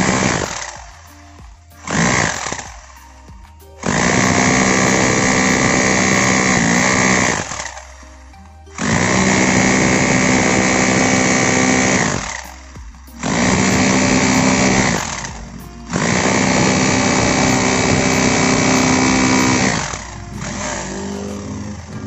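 Bosch GBH 2-26 DRE SDS hammer drill hammer-drilling into a concrete block in a series of bursts: two short ones, then several runs of a few seconds each with brief pauses between. Its hammer action is striking hard, back to normal strength after a repair for weak hammering.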